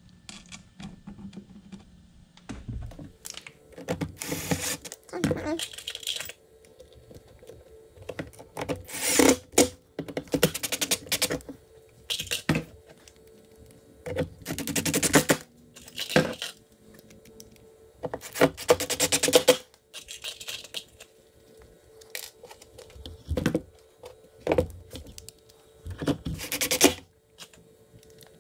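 Cordless drill/driver driving small screws into the cover plate of an electric skateboard's battery and electronics enclosure, running in about a dozen short bursts of a second or so with pauses between.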